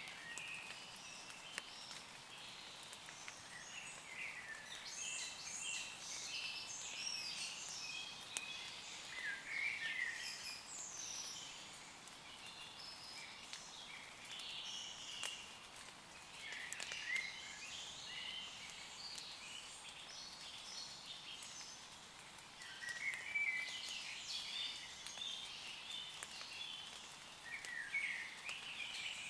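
Woodland birds singing in repeated bouts of chirps and trills over a faint steady hiss of light rain, with scattered single drops ticking.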